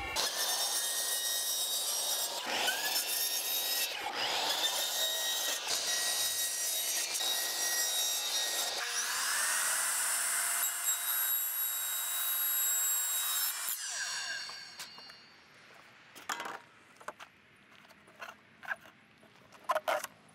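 Miter saw cutting white PVC square downspout tubing: several cuts, each with the blade's whine rising as it spins up, over the first 14 seconds or so. Then it goes quiet, apart from a few sharp knocks as the cut pieces are handled.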